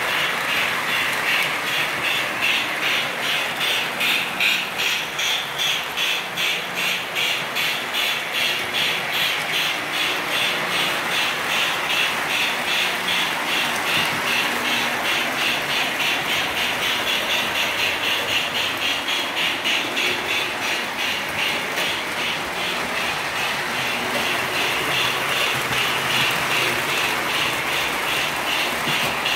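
O scale model train running on its layout track: the locomotive's motor whirring and the wheels of the freight cars clicking in a steady rhythm as they roll over the track.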